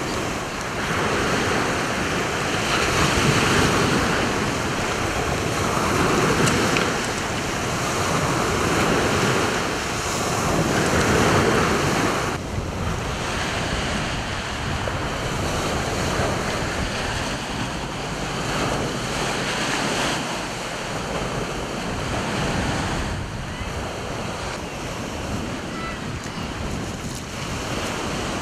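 Sea waves breaking and washing up a shingle beach, swelling every three to four seconds. About twelve seconds in the sound changes abruptly to rougher, steadier surf with wind buffeting the microphone.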